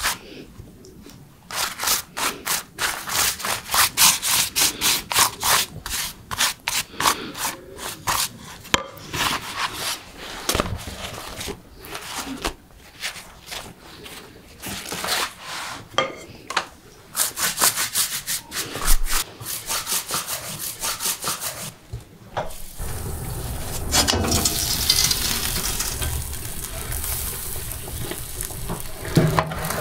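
Pastry brush rubbing warm water over lavash flatbread on a wooden board, in quick strokes a few a second. About three-quarters of the way through, this gives way to a steady hiss from a wood-stove oven where potatoes are roasting.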